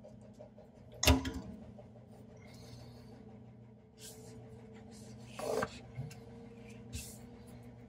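Steel screwdriver scraping and clicking against a rusted metal sink-strainer locknut in scattered strokes as it is worked into the hacksaw cut to pry the nut apart. The sharpest click comes about a second in, and another loud scrape about five and a half seconds in.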